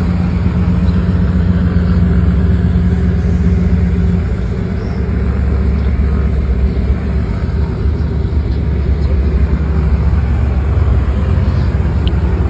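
Steady low engine rumble from a de Havilland Beaver floatplane moving on the water, mixed with a motorboat running at speed beside it. A steady hum in the sound drops out about four seconds in.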